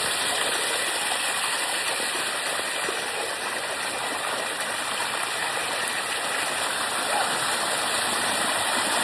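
Water of the Bua Tong Waterfall rushing steadily over its rocks, a constant even wash of sound.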